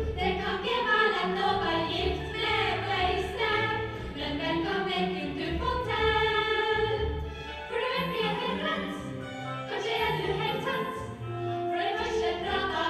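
A group of women singing a song together over instrumental accompaniment.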